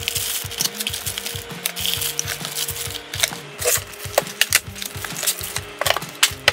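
Small cardboard boxes being opened and handled, with flaps rustling and plastic-wrapped parts clicking and crackling in irregular sharp sounds, over background music with a steady bass beat.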